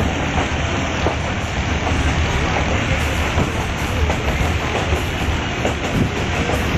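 Passenger train running along the track, heard from inside a carriage: a steady rumble of wheels on the rails with a few faint clicks.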